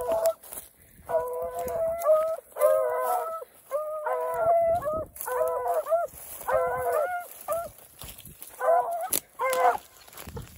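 Beagle rabbit hounds baying on a scent trail: a string of pitched bawls, about one a second, each drawn out for under a second with short breaks between.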